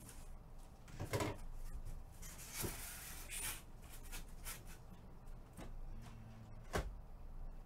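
Faint handling noises at a table: a few light knocks and a brief rustle, like items and packaging being moved about.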